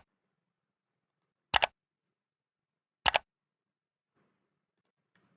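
Computer mouse double-clicked twice, about a second and a half apart: each a quick pair of sharp clicks.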